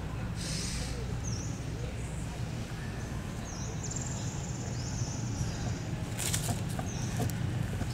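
Outdoor ambience: a steady low rumble, with short high chirping calls repeating every second or so. A brief burst of rustling comes about six seconds in.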